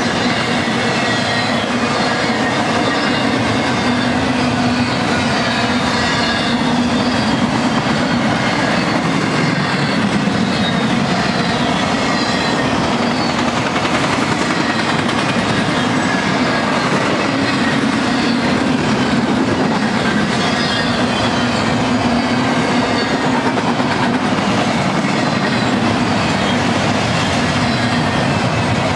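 Double-stack intermodal train's well cars rolling past: a steady rumble of steel wheels on the rails, with no break in the sound.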